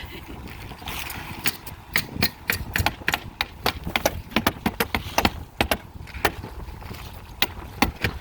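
Rapid, irregular sharp strikes, several a second, from fastening synthetic roofing underlayment to the roof deck, over a low wind rumble on the microphone.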